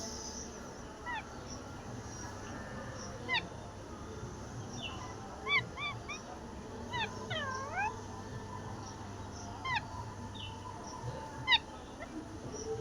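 Parrot giving short whistled calls that fall in pitch, one every second or two, with a couple of swooping down-and-up whistles about seven seconds in.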